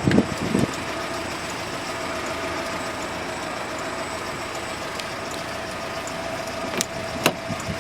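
Steady hum of an idling vehicle engine, with a few sharp clicks near the end.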